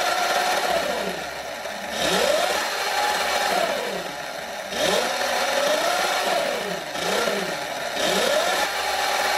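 Sur Ron electric dirt bike's motor and chain drive being free-revved on the stand: four whines that rise in pitch, hold, then fall away, about every three seconds. Under them runs a gritty sound that the owner puts down to crash damage in the swing arm area.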